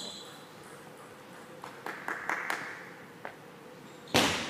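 Table tennis ball bouncing, a few light clicks about two seconds in and another a second later, then one loud short thump near the end.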